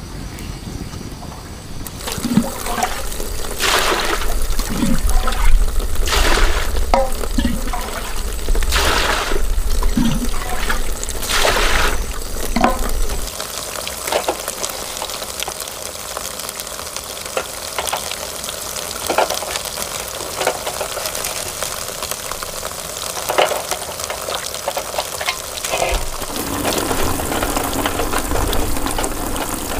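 Water splashing and pouring in several separate bursts through the first half, then a steadier flow of running water.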